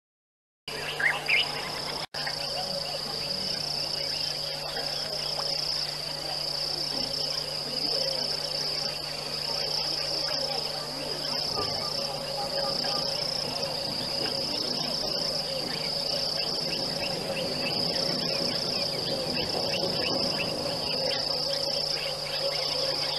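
Steady chorus of insects trilling, a continuous high-pitched buzz that swells and fades slowly, over a faint low hum. A couple of short, louder chirps come about a second in.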